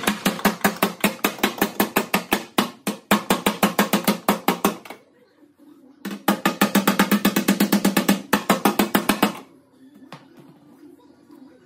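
Fast, steady hammer blows on metal, about six a second, each ringing briefly. They come in two runs with a short pause between them.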